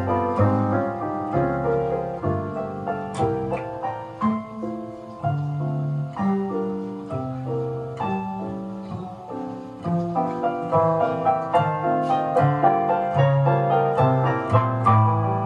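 Piano music played back from a reel-to-reel tape through a 71A parallel single-ended tube amplifier and its loudspeakers: a run of struck notes with bass notes under a melody.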